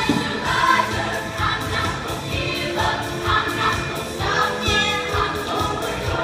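An all-female show choir singing together over a steady beat.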